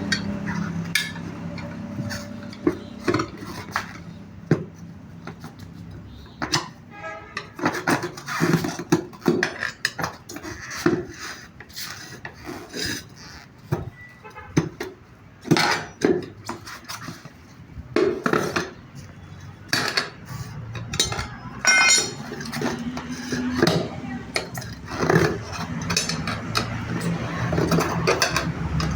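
Irregular metallic clanks, knocks and clinks of hand tools being worked against metal, some with a short ringing tail.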